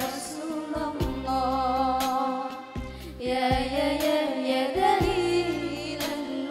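A woman singing a slow, wavering melody into a microphone over amplified backing music, with a few drum strokes and low bass notes under her voice.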